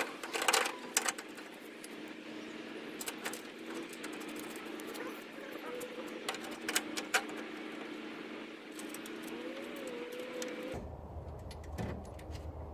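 Sharp metallic clinks and taps of brackets, bolts and tools being handled while a car radiator is fitted, loudest in the first second and again about six to seven seconds in, over a steady low hum. The background changes abruptly near the end.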